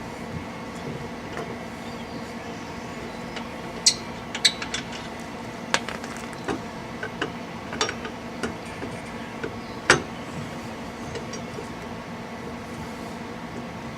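Scattered sharp metallic clinks and knocks, about a dozen over six seconds, the loudest near the start and the end of the run, from hand work on the car's wheel and lug nuts. A steady hum runs underneath.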